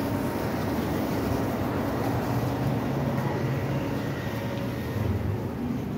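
A heavy truck's engine running steadily, a low even drone with no break.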